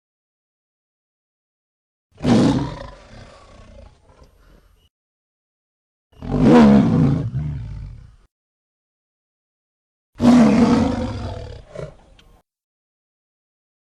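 Three separate Allosaurus roar sound effects, each a loud call of about two seconds that fades away, with silence between them.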